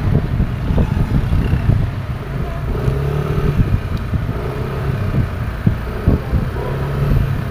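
Yamaha NMAX scooter under way, its engine running with a steady hum that comes and goes, under heavy wind rumble on the microphone.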